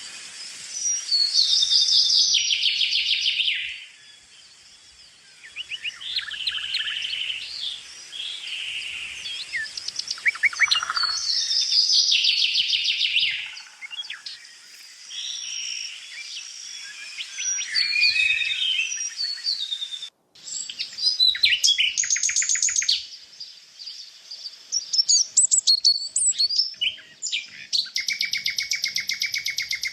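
Songbirds singing: repeated phrases of high chirps and fast trills, several at once near the end, with a brief break about twenty seconds in.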